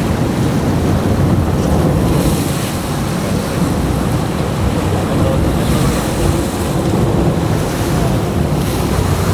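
Steady wind buffeting the microphone over the rush of sea water around a sport-fishing boat at sea.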